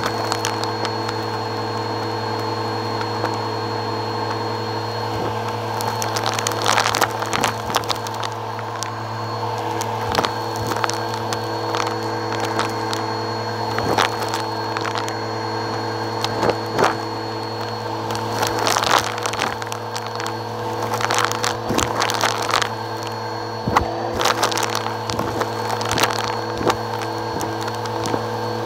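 Bissell Helix vacuum running steadily through its hose and wand with a constant motor hum, sucking up paper bits, pom-poms and glitter off a rug. From several seconds in, frequent crackles and rattles come as the pieces are pulled up the hose.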